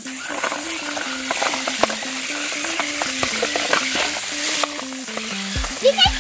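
Steady hiss of water spraying down from an outdoor shower onto a wet stone-tiled floor and a small remote-control toy car, rinsing the mud off it; the hiss drops off sharply about four and a half seconds in. A simple background melody plays under it.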